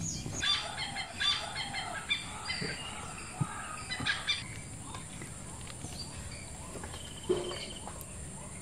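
Birds calling in quick, short chattering notes, busiest in the first four seconds and then thinning out, with a few soft knocks in between.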